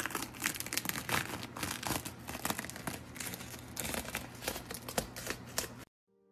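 Dense crackling and crinkling as hands work a wet blue-and-white coating on a white sneaker sole. It cuts off abruptly near the end.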